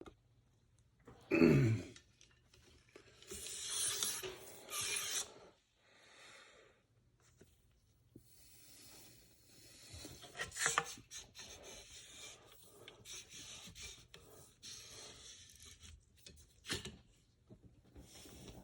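Scrubbing and rubbing strokes from cleaning a black powder rifle, with a few sharp clicks. About a second in, a short loud sound slides down in pitch.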